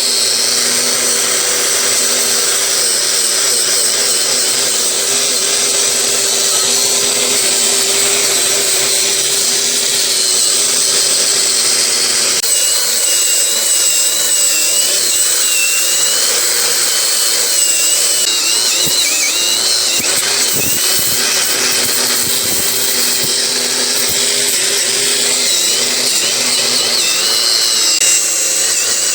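Electric power tool running steadily under light load, its motor holding a near-constant pitch with a slight waver.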